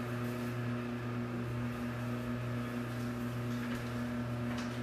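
Microwave oven running with a steady electrical hum, heating an ingredient only until it just starts to melt so that it won't burn.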